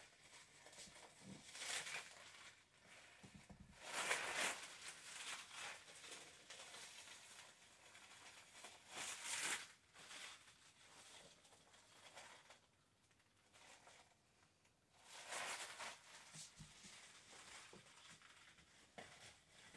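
Clear PVC plastic dress rustling and crinkling in a few short bursts as the wearer moves, with quiet stretches between.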